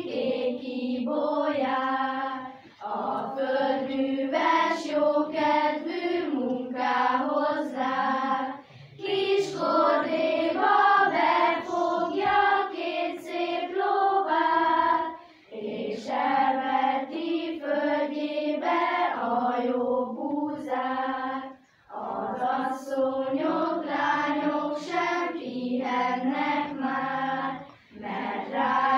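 Children's school choir singing a German folk song unaccompanied, in phrases of about six seconds, each ended by a short breath pause.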